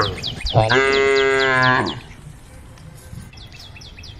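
A cow mooing: one long call starting about half a second in, just after the end of an earlier moo. A bird chirps in quick repeated notes behind it, about four a second, and fades after the moo.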